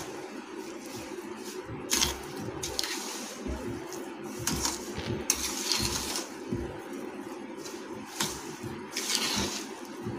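A utensil stirring and scraping a thick, crumbly mix of roasted gram flour and raw cane sugar in a steel pot, in irregular strokes.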